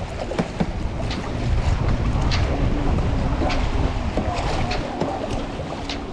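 Wind buffeting the microphone over water lapping around a small fishing boat, with scattered light knocks.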